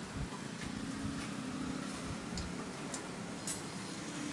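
A few light metallic clicks and taps as the fuel tank and its bracket are worked loose from a diesel generator engine, over a steady low hum.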